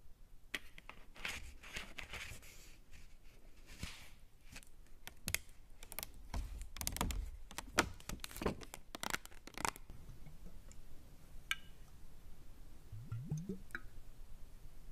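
ASMR 'invisible trigger' sounds made close to the microphone: a busy run of crunchy, scratchy clicks and rustles for about ten seconds, then only scattered clicks and a short rising low sound near the end.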